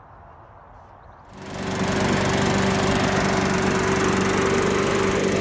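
Briggs & Stratton lawn mower engine comes in about a second in and then runs loudly at a steady speed.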